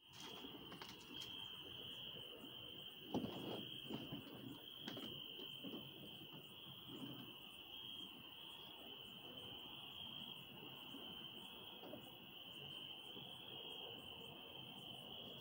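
Crickets chirping in a steady, continuous drone, with a few soft knocks about three and five seconds in.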